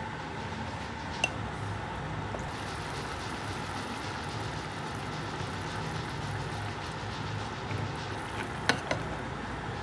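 Steady low rumble of background noise, with a sharp click about a second in and two clinks close together near the end.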